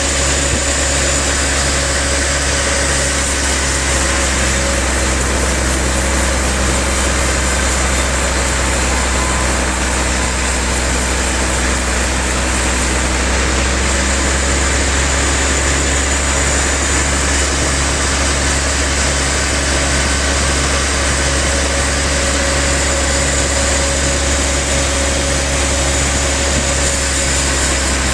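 Sawmill machinery running steadily, a constant loud low hum with an even mechanical noise over it that does not change.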